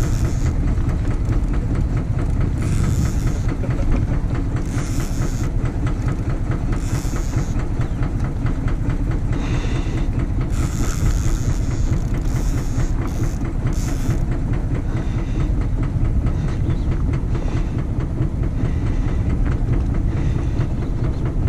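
Fishing boat's engine running steadily with a low, fast-pulsing rumble, with short bursts of hiss every second or two.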